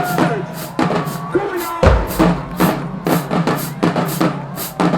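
Marching band drumline playing a steady cadence: snare and cymbal strokes over a low beat, with a deep bass-drum hit about two seconds in.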